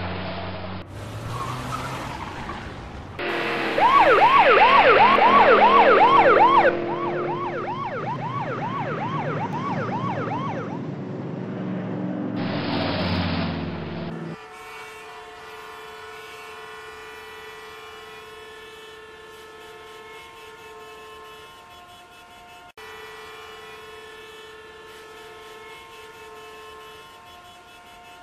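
A police siren yelps over traffic noise, its pitch rising and falling about three times a second. It is loud for a few seconds, then fainter. About halfway through the traffic drops away and a quieter, steady sound of several held pitches takes over.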